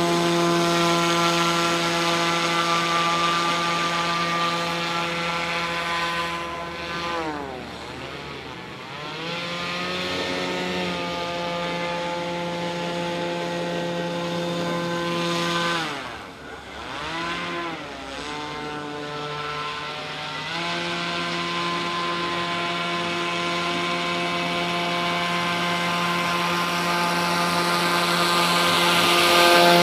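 An RC airboat's NTM PropDrive 50-60 brushless motor spins an APC 7x8 air propeller with a steady high-pitched drone. Twice, about seven and sixteen seconds in, the pitch drops and then climbs again as the throttle is eased off and opened up. The sound grows louder near the end as the boat comes closer.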